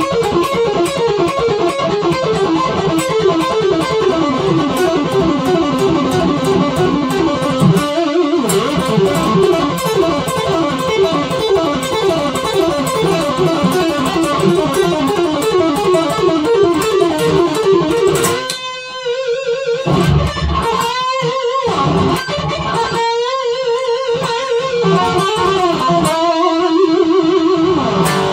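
Electric guitar playing a fast heavy metal riff of rapidly repeated picked notes. After about 18 s it breaks into shorter phrases with brief pauses and held notes.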